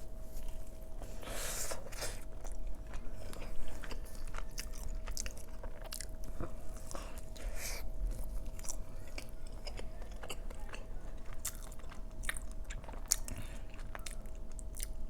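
Close-up eating sounds of a large burrito dipped in cheese sauce: biting and chewing with wet mouth clicks and smacks.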